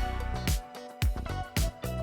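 Background music with a steady beat of about two low drum hits a second under a held tone.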